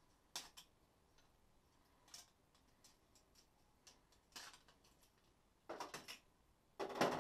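Scattered clicks and light knocks from an orange-handled hand tool being worked at a flat-pack sink cabinet, a few at a time, with the loudest cluster of knocks near the end.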